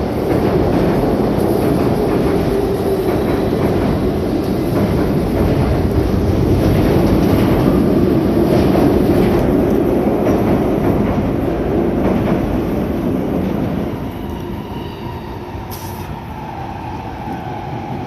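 Tobu 20050-series electric commuter train running past on an elevated viaduct: a steady running noise of wheels on rails that grows quieter from about fourteen seconds in as it moves away.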